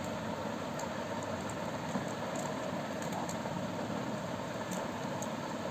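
Steady background noise with a few faint, light ticks from bare copper wire being handled against switch terminals.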